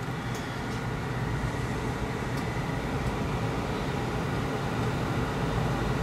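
Gas furnace running: its draft inducer fan hums steadily while the burners, just lit on low fire, add a steady rush that grows a little louder over the first couple of seconds.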